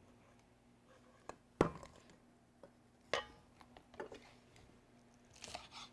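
Kitchen knife chopping scallions on a wooden cutting board: a handful of short, irregular knocks, the loudest about a second and a half in.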